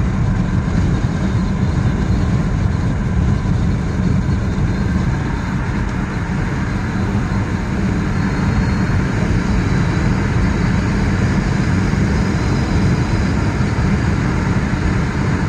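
Wind and road noise in the cabin of a moving Lada Vesta with the window open, with a faint high whistle from the door mirror setting in about halfway through.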